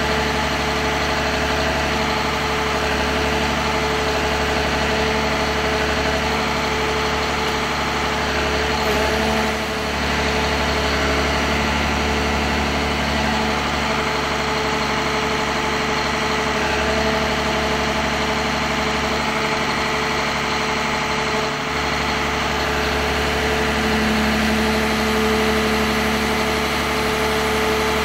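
John Deere 1210E forwarder's diesel engine running steadily at a constant speed.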